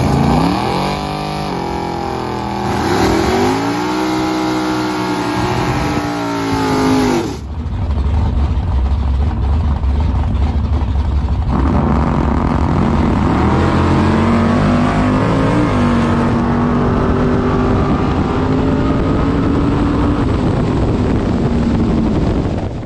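Drag-race Chevy Vega's engine revving up and down in the burnout box. After a cut there is a low rumble, then a full-throttle pass: the pitch climbs, dips briefly about fifteen seconds in, and holds high to the end.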